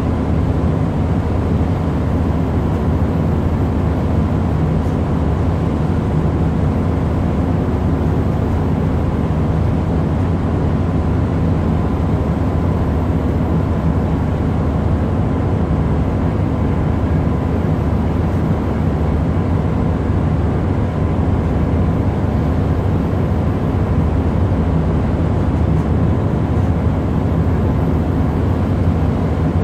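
Steady low drone of a ship's engine, heard on board the vessel, with a faint steady hum above it.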